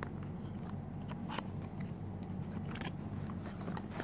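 Light scattered clicks and crackles of a cardboard perfume box being opened by hand, its flaps pulled apart, over a steady low hum.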